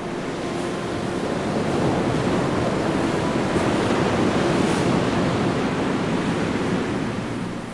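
A steady rushing noise of sea surf and wind, swelling about a second and a half in and easing off near the end.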